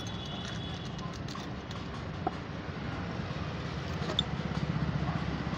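Low, steady rumble of road traffic, growing a little louder in the second half, with a couple of light clinks of steel utensils and glass.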